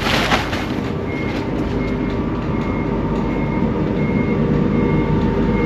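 Forklift engine running as it backs up, its reversing alarm beeping steadily about every three-quarters of a second.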